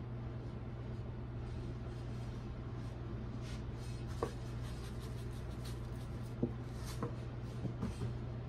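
Kitchen handling sounds over a steady low hum: a handful of soft clicks and taps as raw chicken pieces are set into a stainless steel pot and a spice shaker is picked up and put down, the sharpest click about two-thirds of the way in.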